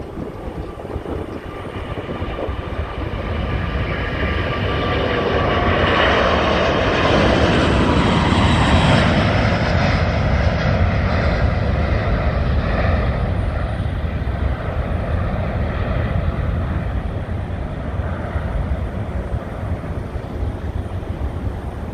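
Airbus A380's four jet engines at takeoff thrust, growing louder as the airliner rolls and lifts off past the listener, loudest about a third of the way in with a whine that falls in pitch as it passes. A deep rumble then eases slowly as it climbs away.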